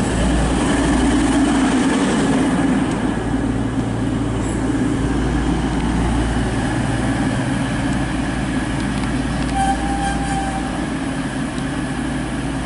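East Midlands Trains Class 222 Meridian diesel multiple unit at a station platform, its underfloor diesel engines running with a steady drone. A brief high tone cuts in about ten seconds in.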